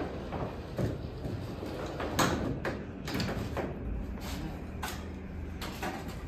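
Freight elevator's slatted gate being pushed down by hand, rattling in its track with a string of sharp clanks, the loudest about two seconds in.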